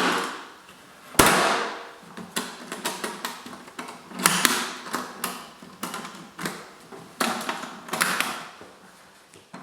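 Hand tools being handled and put away: a series of clunks, clicks and rattles, with a sharp knock about a second in.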